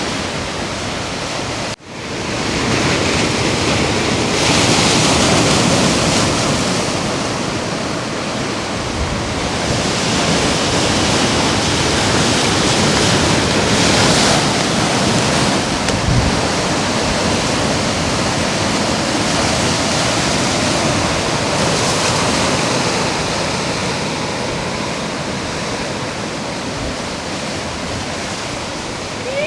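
Ocean surf breaking and washing onto the beach: a continuous rushing wash that swells louder several times as waves come in. It cuts out briefly about two seconds in.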